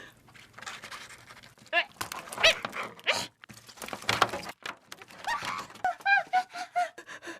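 A person panting hard with short whimpering cries of pain, several brief rising-and-falling squeals among the breaths.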